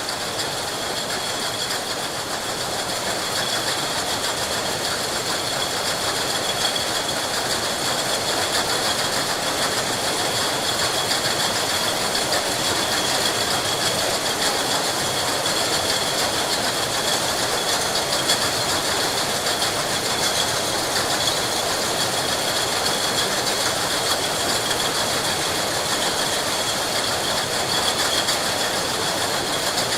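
Glass bottle production line: masses of glass bottles clinking and rattling together on conveyors over steadily running machinery, with a constant high whine.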